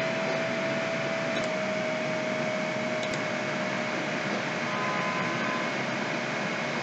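Steady background hiss of the recording with a thin constant tone running under it, and two faint clicks, one about a second and a half in and one about three seconds in. No speech.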